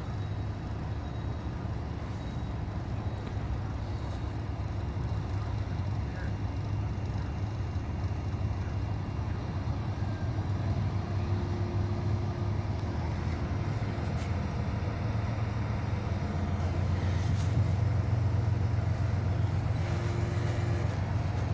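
Heavy diesel truck engines idling with a steady low rumble that grows louder over the last few seconds.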